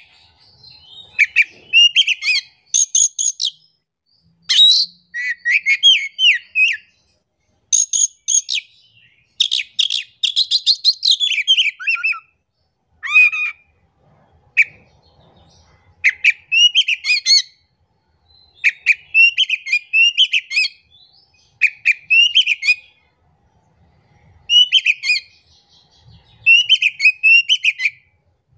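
Oriental magpie-robin in full song: loud phrases of quick whistled and chattering notes, each a second or two long, repeated with short pauses.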